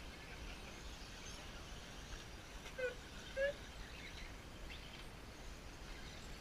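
Steady outdoor background noise with a low wind rumble on the microphone, broken about three seconds in by two short chirps about half a second apart.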